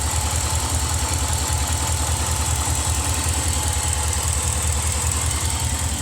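Engine idling steadily with an even, rapid low pulsing; whether it has a knock in it is in doubt for the owner.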